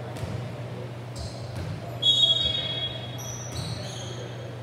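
Volleyball gym between rallies, with a steady low hum. About two seconds in comes a loud, shrill, high-pitched tone lasting about half a second, followed by several shorter high squeaks.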